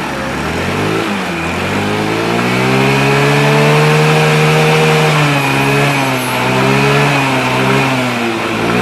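Motorstar Easyride 150 motorcycle engine being revved: the pitch climbs over the first few seconds and holds, drops back, rises again briefly, then falls near the end. The bike now starts and runs after water and dirt were cleaned out of its carburetor, the cause of its hard starting.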